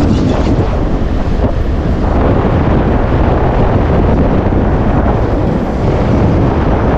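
Steady, heavy wind rush over the microphone of a moving motorcycle, with the bike's running noise underneath.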